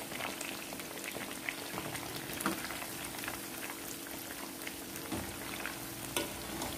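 Spiced, batter-coated prawns deep-frying in a pan of hot oil: a steady sizzle full of small crackles and pops. In the last two seconds a slotted metal spoon stirs them, with a couple of dull knocks.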